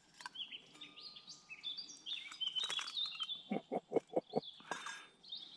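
Woodland birds singing and chirping. Near the middle, a quick run of about seven knocks as the metal billycan lid is handled and set down.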